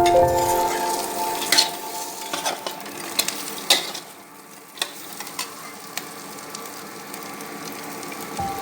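Food sizzling as it fries in a pan, with scattered clicks of stirring. Background music fades out in the first second and comes back near the end.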